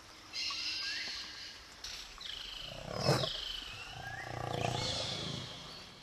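Forest ambience with a high hiss and birds calling in short rising whistles, over which a big cat growls twice: a short, loud growl about three seconds in and a longer, lower one from about four seconds that fades out near the end.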